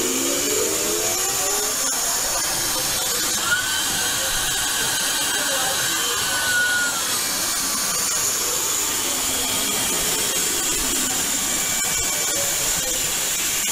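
Suction blower of a candy prize vending machine running with a steady, rushing hiss while its suction tube works over the candy bags.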